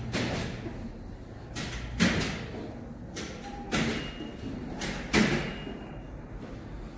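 Loaded hand truck bumped down concrete stairs step by step: four loud thuds about every one and a half to two seconds, with a weaker knock between the first two.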